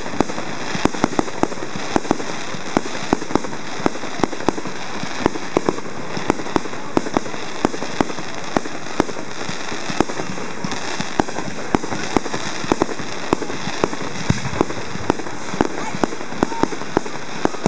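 Aerial fireworks going off: a steady run of sharp bangs and crackling pops, a few a second at irregular intervals.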